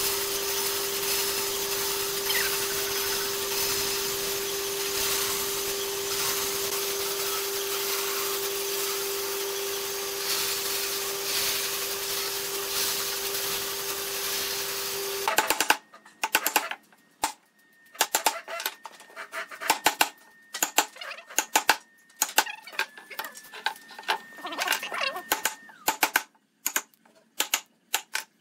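A power tool running steadily with a constant hum, which cuts off suddenly about fifteen seconds in. After it come irregular sharp clicks and knocks of tools and wood being handled.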